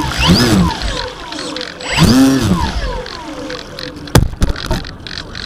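A Parkzone Sport Cub's electric motor revving up and back down in short throttle blips: a few rising-and-falling whines about half a second each, with slower falling whines as it spins down. About four seconds in there is a sharp knock, followed by a few lighter clicks.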